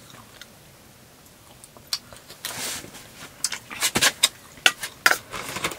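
Clatter of dishes and utensils at a meal: scattered sharp clicks and knocks, sparse at first and coming thick in the second half, with a brief hiss about two and a half seconds in.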